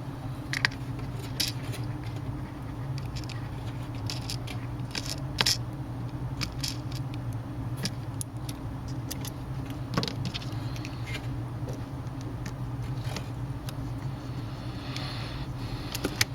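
Scattered small clicks and taps of a screwdriver and small metal parts while screws are driven back into a tablet's frame, over a steady low hum.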